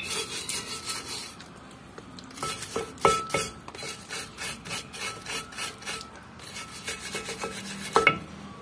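A hand-held brush scrubbing the rusty, greasy drum-brake backing plate and wheel cylinder of an Isuzu Elf under poured water, in quick repeated rasping strokes. A few sharper knocks come about three seconds in and near the end.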